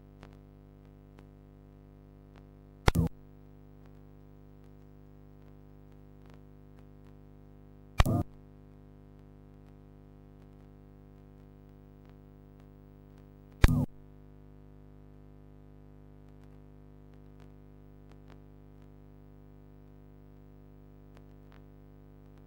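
Sparse synthesizer music: a low steady drone with three short, loud hits about five seconds apart.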